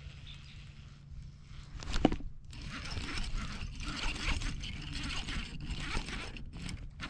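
A single sharp knock about two seconds in, then irregular scraping and rustling handling noise from a baitcasting rod and reel being worked by hand close to the microphone.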